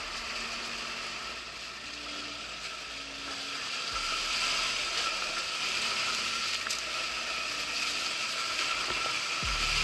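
Electric enduro motorcycle being ridden: a steady whine from the drive with mechanical rattling and rush of wind and tyres. It eases off about a second and a half in and builds again from about four seconds.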